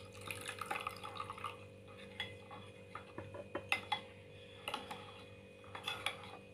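Water poured from a small glass into a ceramic bowl of sauce mixture, then a metal spoon stirring it and clinking against the bowl in scattered light taps.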